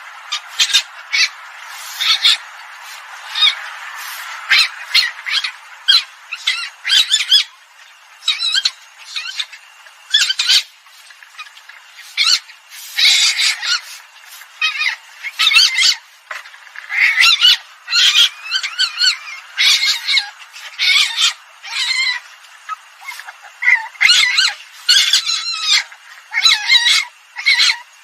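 Recorded calls of an Asian palm civet, used as a decoy call to lure civets: short high-pitched calls repeated in quick runs of several a second, broken by short pauses.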